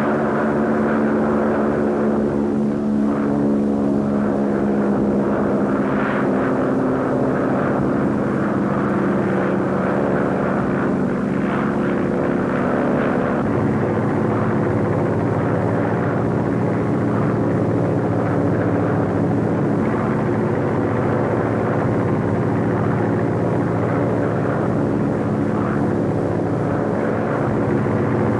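Biplane's propeller engine running steadily in flight, a continuous drone whose pitch and tone shift about halfway through.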